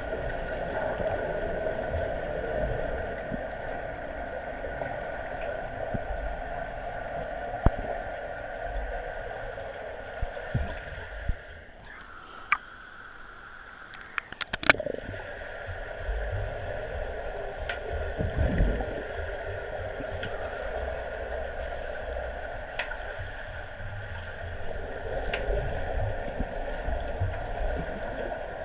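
Swimming pool heard underwater through a submerged camera: a steady hum and hiss with low bumps. Around halfway the camera briefly breaks the surface, the hum drops away, and a few sharp splashing clicks follow as it goes back under.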